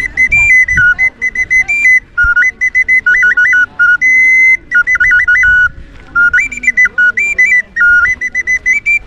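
Jaguar-warrior flute played as a quick, high whistling tune. It hops between a few pitches in short notes and rapid trills, with a couple of brief pauses.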